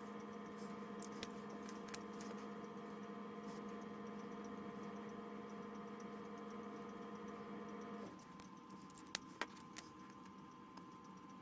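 Faint steady electrical hum that drops in level and loses some of its tones about eight seconds in, with a few light isolated clicks and taps.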